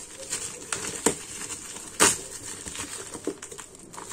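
Black plastic parcel bag being torn open and crinkled by hand: a steady rustle with sharp rips about a second in and, loudest, about two seconds in.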